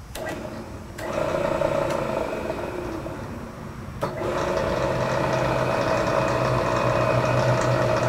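Variable-speed Bridgeport milling machine head starting up in back gear: a click about a second in, then the motor and spindle running with a steady hum and whine. A second click comes about four seconds in, after which it runs a little louder.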